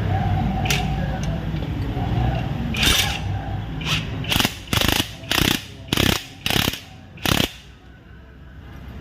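A run of about seven short, loud rasping mechanical strokes, roughly two a second, from tool work on a car's shock absorber mounting, over a low rumble at the start.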